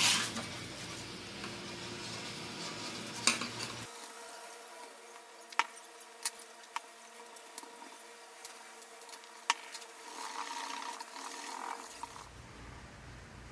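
A cloth rag rubbing metal polish onto small brass hardware pieces, with scattered light clicks as the little parts tap against the work surface.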